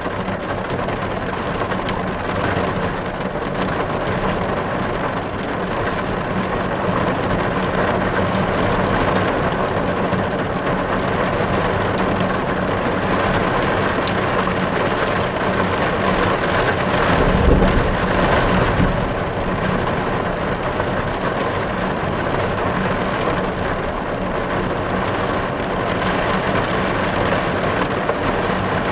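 Steady heavy rain, with a low thunder rumble swelling up and fading a little past the middle.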